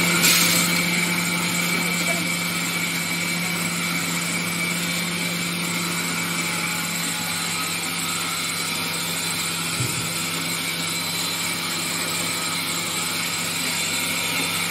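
Electric stainless-steel pulverizer (flour mill) running steadily while grinding split lentils into flour, a constant low motor hum with a thin high whine above it. It is a little louder in the first second.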